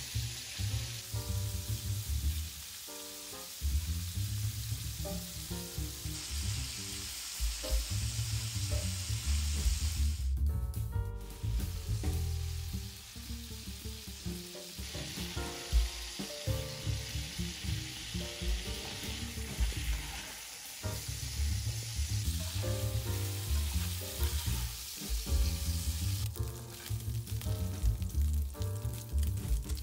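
Beef strips sizzling in hot oil in a nonstick frying pan, turned and stirred with tongs and a spatula. Quiet background music with a beat plays underneath.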